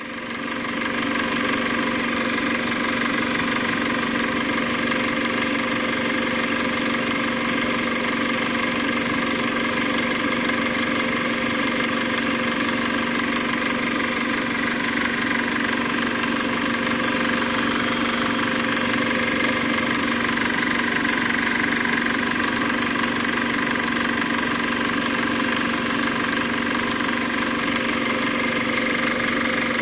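Film projector running steadily, a constant mechanical hum that does not change across the picture cuts.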